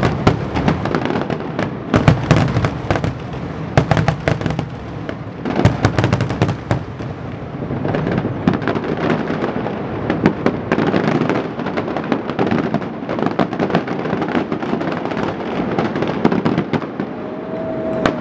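Aerial fireworks shells bursting in a rapid, overlapping barrage of sharp bangs and crackles.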